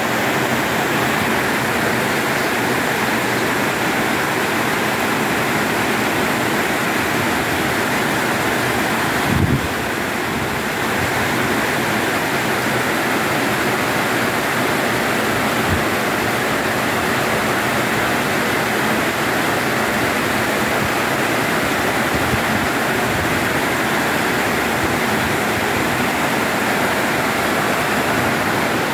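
Heavy rain pouring steadily onto corrugated metal roofs and palm trees, an even hiss of water with no letting up. A short low thump about nine seconds in.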